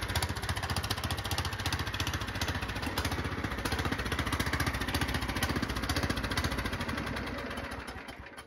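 Yard Machines 15 hp riding lawn mower engine running at a steady speed with a fast, even pulse, dying away near the end.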